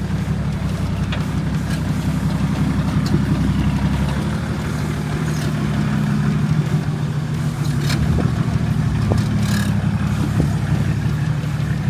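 Four-wheel drive's engine running steadily at low revs, crawling along a rocky track, with a few scattered clicks and knocks.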